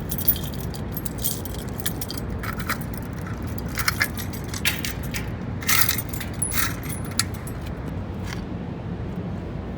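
Irregular metallic jingling and clinking, bunched most thickly in the middle, over a steady low rumble. No alarm is sounding.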